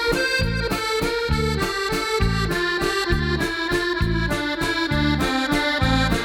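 Accordion music with a steady bass-and-chord rhythm.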